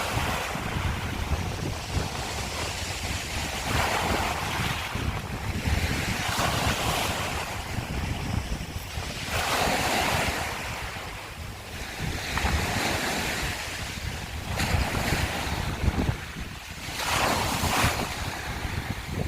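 Sea waves breaking and washing over a shore of broken scallop shells, a rushing hiss that swells and fades about every three to four seconds. Wind buffets the microphone with a steady low rumble underneath.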